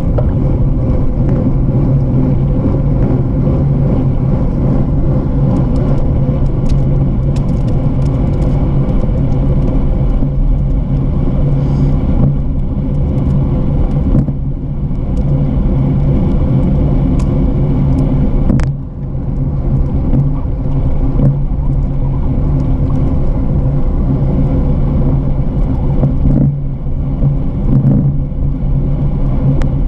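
Steady wind and tyre rumble on a bike-mounted action camera's microphone while riding along a paved trail, mostly low and continuous, with one sharp click about two-thirds of the way through.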